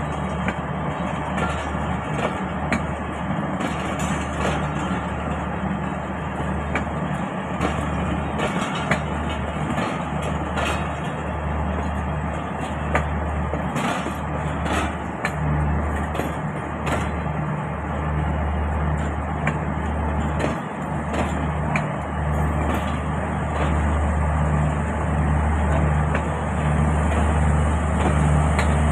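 Pakistan Railways passenger coaches rolling past, their wheels rumbling along the rails with irregular sharp clacks; the rumble grows louder near the end.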